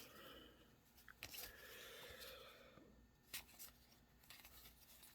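Faint rustling and a few light clicks of trading cards being handled and flipped through by hand.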